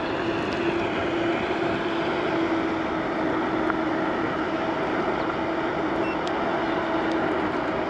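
Gotrax GX1 electric scooter's dual 600-watt motors running under way in drive mode, a steady whine over a rush of wind on the microphone, building slightly in the first second.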